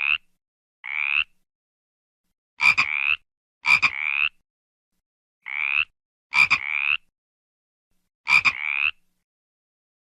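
A frog croaking in short, high calls, each rising slightly in pitch, about seven in a loose irregular rhythm. Several calls open with a sharp click, and the gaps between them are silent.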